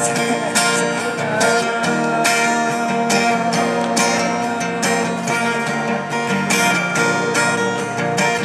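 Acoustic guitar strumming chords in a steady rhythm.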